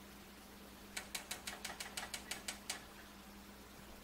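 A spoon clicking against the side of a small stainless steel saucepan as sauce is stirred: a quick run of about a dozen light clicks, roughly seven a second, starting about a second in.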